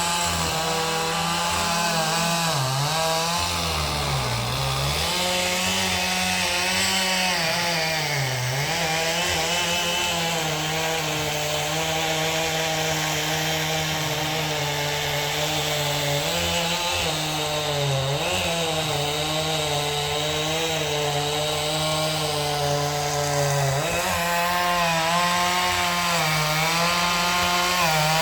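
Two-stroke chainsaw running at high revs while cutting into a tree. Its engine note dips and recovers several times as the chain bites into the wood.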